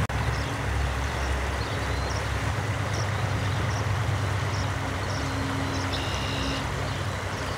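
Steady rush of flowing floodwater under a low, even motor hum. Small birds chirp throughout, with one longer call about six seconds in.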